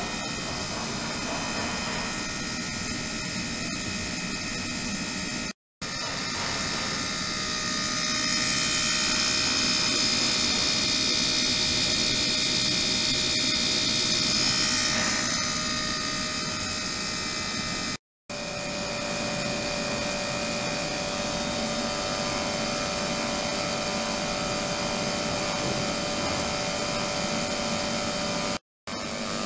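A submersible ultrasonic transducer box running in a plastic tub of water, along with a small DC motor and pump beside it: a steady buzzing hiss with several high steady tones, louder for several seconds in the middle. The sound drops out abruptly three times.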